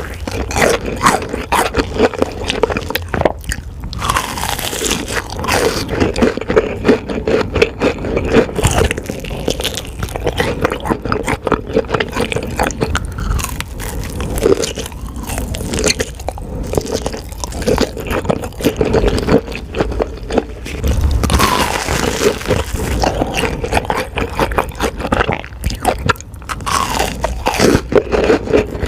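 Close-miked eating sounds: repeated crunchy bites and chewing, a dense irregular run of crisp crackles.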